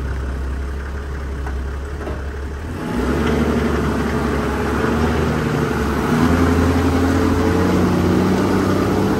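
Toyota Land Cruiser's engine heard from inside the cabin. It runs low and steady at first, then the revs step up about three seconds in and again about six seconds in.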